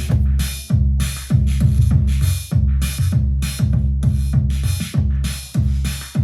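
Arturia DrumBrute Impact analog drum machine playing a steady electronic beat. Deep kick drums drop in pitch on each hit, under regular bursts of noisy hi-hat and cymbal.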